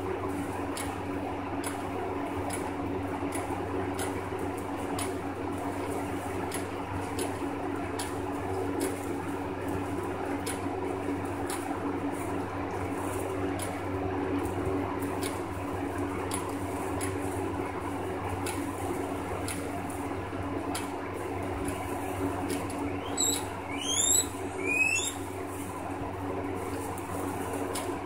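Guinea pigs chewing and rustling through loose hay, with many short clicks over a steady hum. Near the end come a few brief rising squeaks from the guinea pigs.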